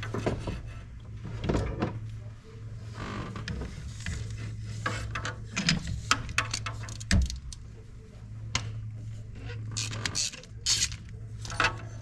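Scattered metal clicks and scrapes of a spark plug socket on a ratchet extension being worked down onto a spark plug, over a steady low hum.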